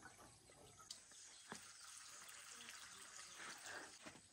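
Faint water sloshing and dripping as a watering can is dipped into a metal drum of water and filled, with a few small knocks.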